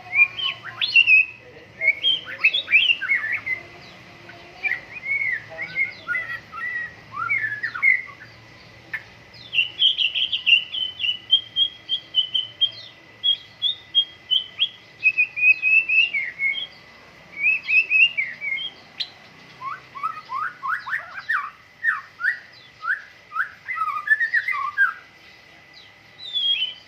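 White-rumped shama (murai batu) singing a long, varied song of clear whistles and quick sweeping notes in phrases broken by short pauses, with a run of lower, rapid notes in the second half. A faint steady high tone runs underneath.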